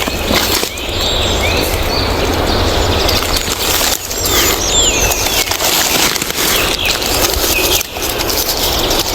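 Small forest birds chirping, short sweeping calls several times, over a loud, steady crackly rustling.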